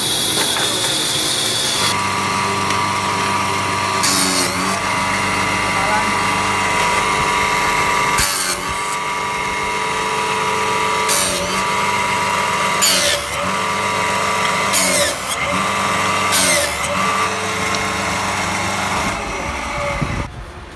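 A woodworking machine's motor runs steadily, and wooden strips are fed into its cutter about six times, each cut a short loud burst over the running tone. In the first two seconds a band saw runs instead.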